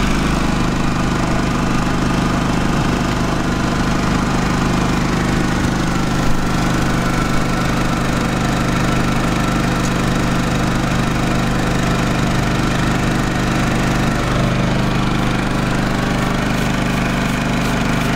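Small portable generator engine running steadily, an even mechanical drone, with a slight change in its low note near the end.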